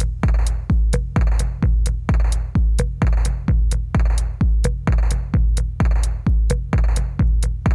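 Background electronic music with a steady, fast kick-drum beat, about two beats a second.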